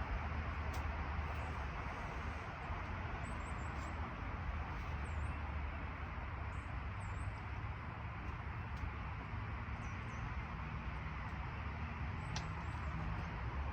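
Steady background hiss with a low hum, with faint short high-pitched chirps every second or two and a couple of light clicks.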